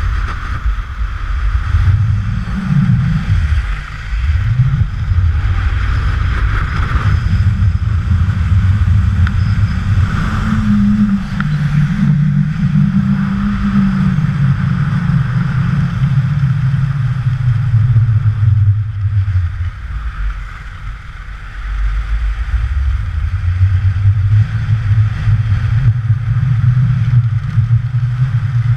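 Wind rumbling on a GoPro's microphone during a fast ski run, with the hiss of skis sliding on groomed snow. The sound is loud and unbroken, easing briefly about two-thirds of the way through.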